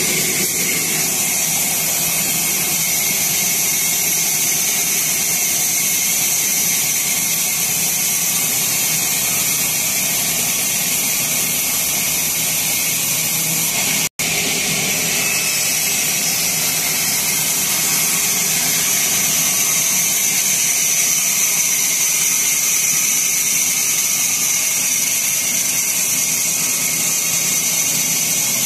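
Sawmill saw running at a steady pitch, a continuous high-pitched whine and hiss of the blade and machinery, with a momentary dropout about halfway through.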